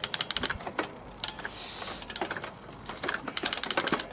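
A bicycle drivetrain being shifted through the gears, with rapid clusters of mechanical clicks from the shifter, derailleur and chain, and a brief hiss about one and a half seconds in. The shift cable is new and stretching in.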